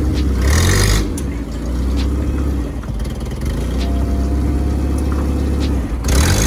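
Vehicle on the road: a steady low rumble of engine and road noise, with a brief rushing hiss about half a second in and again near the end.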